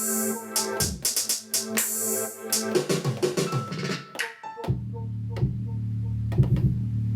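Electronic beat played live on a Native Instruments Maschine: quick high ticks over held keyboard chords, then about four and a half seconds in the beat drops away to a held low bass note with a few sparse short notes.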